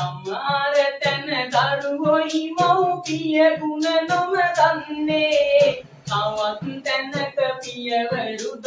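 A young man singing a Sinhala song solo, keeping time with steady strokes on a jingle tambourine that he plays himself.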